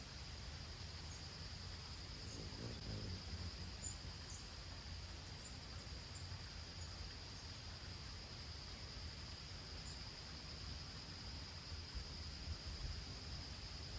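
Steady high-pitched insect chorus that runs unbroken, with a few short, high bird chirps scattered over it and a low rumble underneath.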